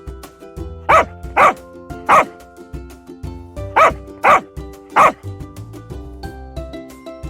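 Dog barking in two sets of three barks over light background music.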